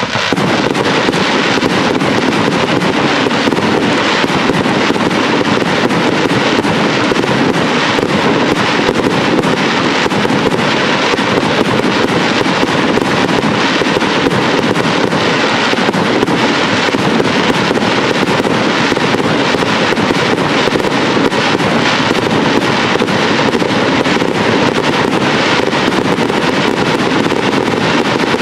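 Fireworks display: a loud, dense, unbroken crackling and hiss from ground fountains and glittering shells, with no single big bang standing out.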